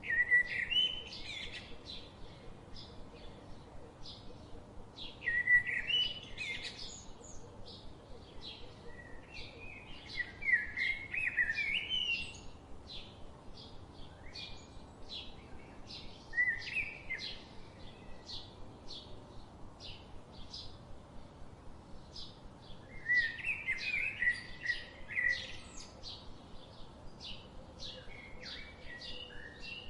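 Birds singing: a steady run of short, high chirps about twice a second, with louder warbling song phrases breaking in every few seconds.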